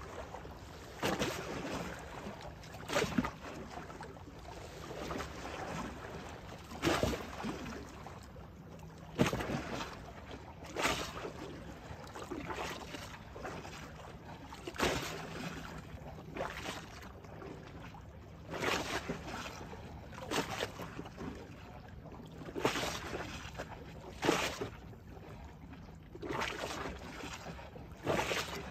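Small river waves lapping and splashing, each swell coming and going every one to three seconds, over a faint steady low hum.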